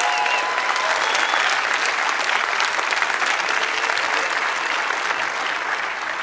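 Crowd applauding steadily, with a whistle and a few cheers fading out in the first second: a stock applause sound effect.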